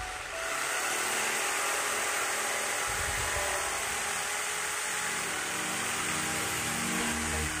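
Corded NRT Pro JS80HD jigsaw running steadily as its blade saws through a teak board. It comes in just after the start and holds an even level throughout the cut.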